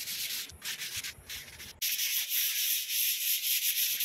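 Sandpaper rubbed by hand over a dried wall-putty coat, a dry scratchy hiss in strokes: a few brief breaks in the first two seconds, then steady sanding. The putty is being sanded smooth ahead of priming.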